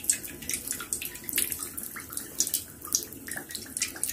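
Cooking oil pouring in a steady stream from a plastic bottle into a heated metal pan, splashing and trickling as it pools.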